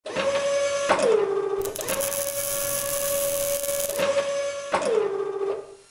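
Sound effects of industrial robot arms: a steady mechanical servo whine that glides down in pitch twice, about a second in and again near the end. From about a second and a half to four seconds in, a hissing crackle of sparks from the arms working the metal plate joins it.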